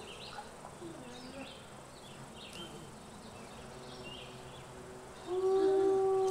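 Faint, scattered high chirps, then about five seconds in a gray wolf starts a long howl on one steady held note.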